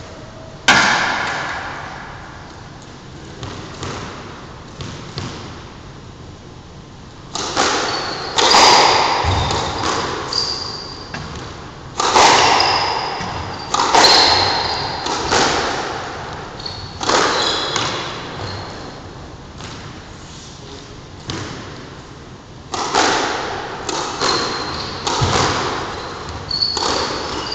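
Squash ball being struck by rackets and smacking off the walls of an enclosed court, each hit echoing. The hits are sparse at first, then come about once a second from around seven seconds in, with short high squeaks of court shoes on the wooden floor between them.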